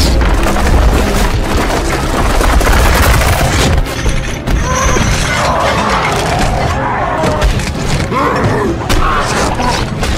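A dense, loud film fight sound mix: heavy thuds, crashes and booms of two giants smashing into each other and the street, with growling roars rising over it a few times and music underneath.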